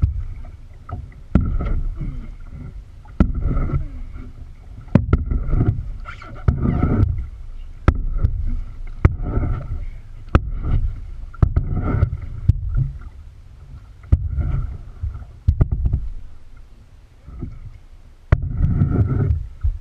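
Kayak paddling: repeated surges of water splash and rush, one every second or two as the strokes go, with several sharp knocks among them.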